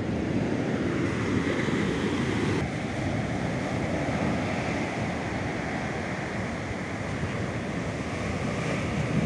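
Heavy ocean surf breaking and washing steadily up a beach, with wind buffeting the microphone.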